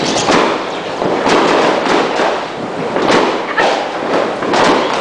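Fireworks going off, a dense run of bangs in quick succession with no pause between them.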